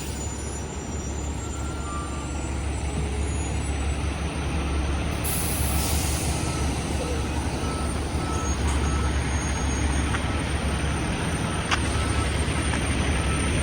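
Heavy diesel paving equipment and trucks running with a steady low rumble, a faint backup alarm beeping at regular intervals, and a brief hiss of air about five seconds in.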